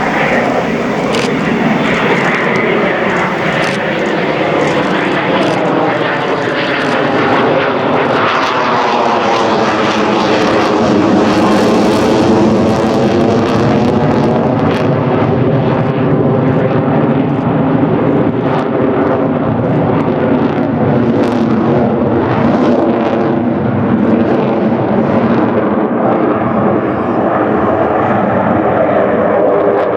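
Military fighter jet flying past with loud, continuous jet-engine noise. About ten seconds in, the noise takes on a swooshing, sweeping tone as the jet passes closest, then it stays loud.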